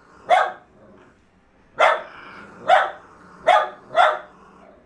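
Dog barking in sharp, single barks: one about a third of a second in, then four more in quick succession from about two seconds in.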